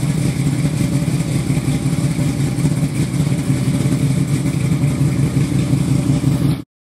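A 427 big-block Chevy V8 in a 1950s Chevy truck running steadily at idle after a startup, with a rough, pulsing exhaust note. The sound cuts off abruptly near the end.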